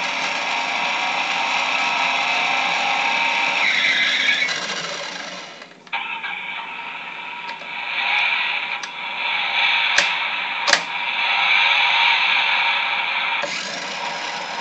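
Electronic engine and music sounds from the Road Rippers turbo revver toy car's small built-in speaker. The sound fades out about five seconds in and starts again after a click. Two sharp clicks come a little past the middle as the roof dial is worked.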